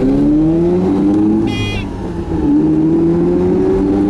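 1984 Mazda RX-7's 13B rotary engine revving hard under acceleration, heard from inside the cabin. About one and a half seconds in, the rev-warning buzzer beeps briefly as the revs near the redline. The engine note dips about two seconds in at a gear change and climbs again.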